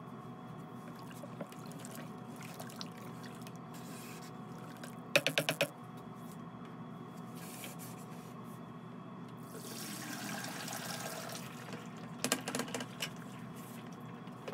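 Clatters of a plastic bucket being handled on a steel table, then liquid ceramic glaze poured from the tipped bucket into a sieve, with a few more knocks near the end, over a steady background hum.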